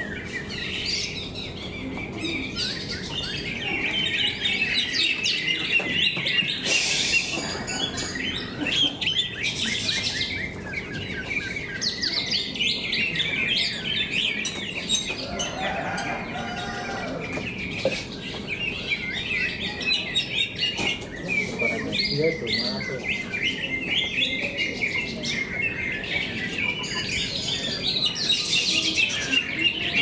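Cucak ijo (green leafbirds) singing in contest cages: a continuous run of rapid chirps, warbles and trills with no pauses.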